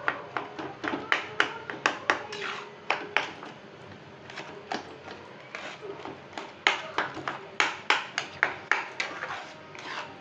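A metal spatula knocking and scraping against the inside of a non-stick kadhai while stirring thick tamarind pulp and jaggery, in quick irregular taps, often two or three together. The stirring keeps the jaggery from sticking to the bottom of the pan.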